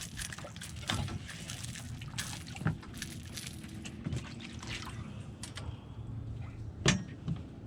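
Water splashing, sloshing and dripping with scattered knocks as a hooked largemouth bass is landed at the side of a fishing boat; one sharp knock about seven seconds in.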